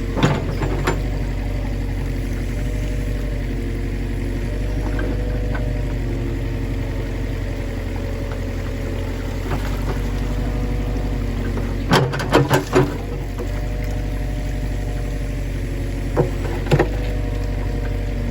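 An engine running steadily at a constant speed, with a few sharp knocks: a quick cluster about twelve seconds in and two more near the end.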